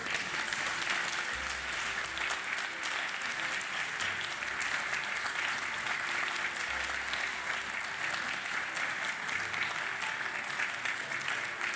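Audience applauding steadily, welcoming an award winner to the stage.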